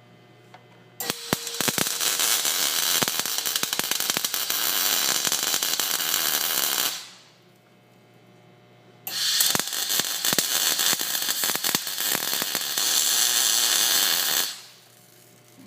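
Welding new cab mounts into the floor of a 1964 Ford F100 cab: two long crackling welding runs, about six seconds and five and a half seconds, with a short pause between them.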